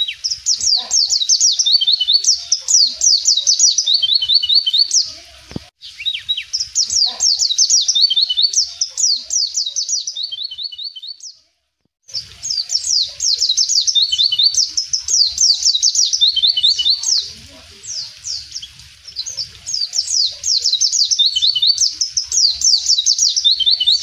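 White-eye (pleci) singing long, fast phrases of high, downward-slurred twittering notes, each phrase ending on a few lower notes, repeated with short breaks. The sound cuts out completely for about half a second near the middle.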